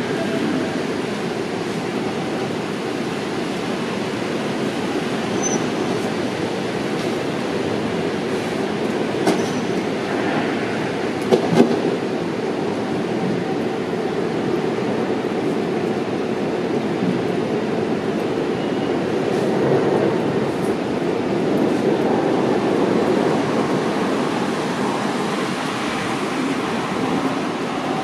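Steady outdoor city noise: a continuous rumble like distant traffic, with a few short clicks a little before the middle.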